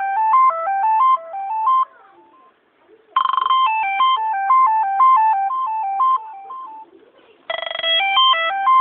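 Oppo mobile phone ringtone: a quick melody of short notes stepping up and down. It plays three times, with short pauses after about 2 seconds and again near 7 seconds.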